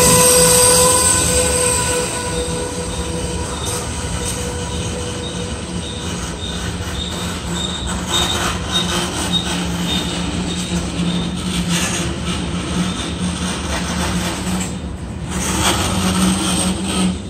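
Freight train of tank cars rolling past, its wheels squealing on the rail with high steady tones that fade out about two seconds in, over the steady rumble and clatter of the cars.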